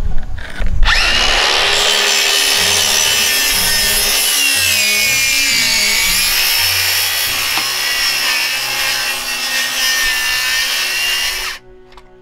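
Makita 18V cordless circular saw cutting through OSB board, trimming a strip off the edge. It starts about a second in, runs through the cut with a high whine that dips and rises, and stops abruptly near the end.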